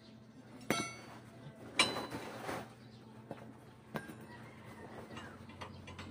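Steel rods clinking and clanking against each other and the metal frame as they are picked up and handled: a ringing clink about a second in, the loudest clank near two seconds, another near four seconds and a few lighter taps, over a faint steady low hum.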